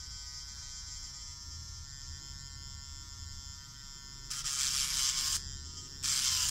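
Hypograph tattoo machine running as a rotary file, giving a steady electric buzz. About four seconds in and again near the end, it rasps loudly for about a second as the file deburrs the sharp cut edge of a thin piece of metal packing.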